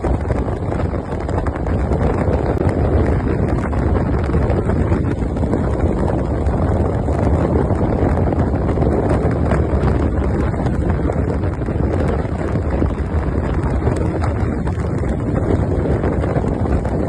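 Heavy wind buffeting the microphone on a moving motorbike, over a steady low rumble of engine and road.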